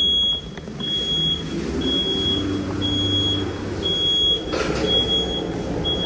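Freight elevator door-closing warning signal beeping about once a second, each beep about half a second long, over the low hum of the power-operated freight doors closing. A brief clunk of the doors about four and a half seconds in.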